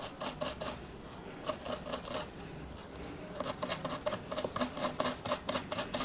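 Quick, scratchy rubbing strokes, several a second in three short runs, as a freshly reballed BGA chip's solder-ball side is scrubbed clean with thinner to free any stray solder balls.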